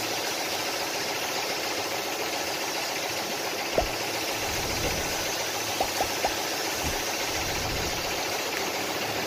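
Steady hiss of a high-pressure washer spraying water onto a truck cab, with a machine running beneath it and a few light knocks.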